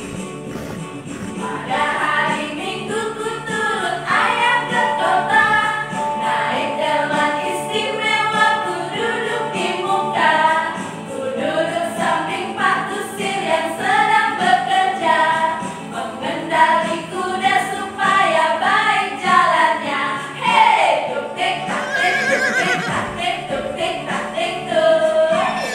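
A group of women singing a children's song together, with keyboard accompaniment.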